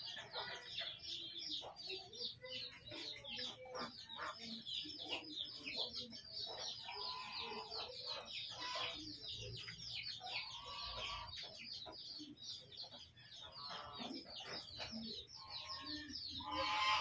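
Backyard chickens clucking over a constant rapid high chirping, with a louder call near the end.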